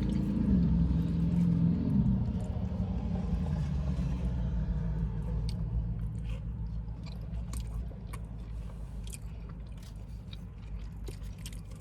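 Close-up chewing and biting of poutine, with small scattered mouth and food clicks, over a low vehicle rumble that fades over the first several seconds.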